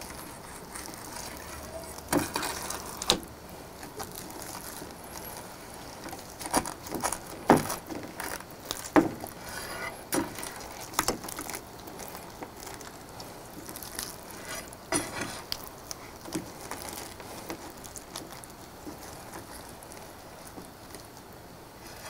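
Crisp fried breading of a tonkatsu crackling and the sauce squishing as gloved hands press and turn the cutlet in sauce on a plate. The sound comes as irregular crackles and clicks, loudest about 2 to 3 seconds in and again from about 7 to 11 seconds in.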